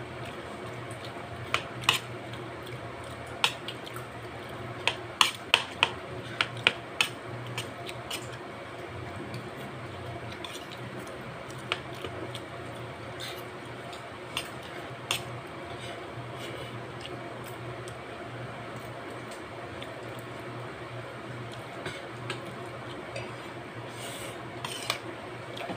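A spoon and fork clinking and scraping against a plate during eating, in short sharp clicks. They come in a quick cluster a couple of seconds in, then scattered, over a steady low hum.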